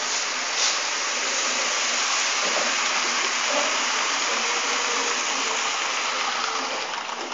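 Model train, a steam-outline locomotive pulling passenger coaches, running along the layout's track: a steady noise of motor and wheels on rails that drops a little near the end as the train moves off.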